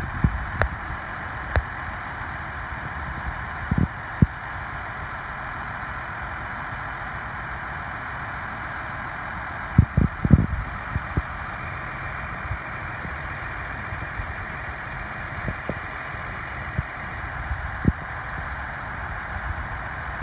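Heavy farm machinery running steadily, with a few short low thumps, the biggest about halfway through.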